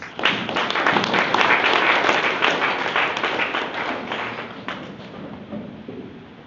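Audience applauding: the clapping starts suddenly, stays loud for about four seconds, then thins out and dies away.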